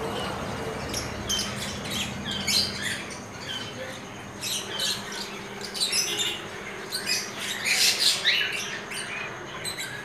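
Caged birds chirping and squawking in many quick, short calls, busiest around eight seconds in, over a faint steady low hum.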